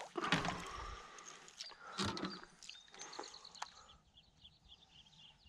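A largemouth bass splashing back into the water as it is released, with a sharp tap about two seconds in. Then a bird calling in a quick series of short, high chirps.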